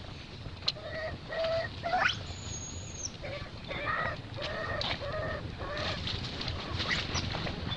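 Newborn baby macaque crying: a run of short, pitched whimpering calls, about two a second, with a shrill rising squeal about two seconds in.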